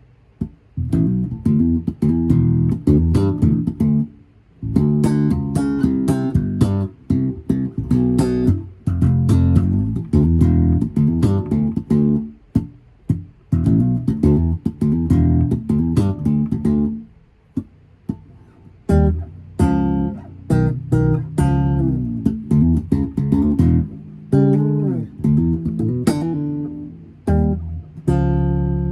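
Tobias Growler five-string bass guitar played slap style: phrases of short, sharply attacked notes, separated by brief pauses.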